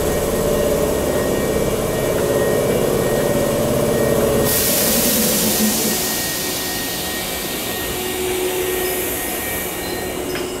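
A former Hankyu electric train stands at the platform with its onboard equipment humming steadily. About four and a half seconds in, a sudden loud hiss of released air starts and slowly fades.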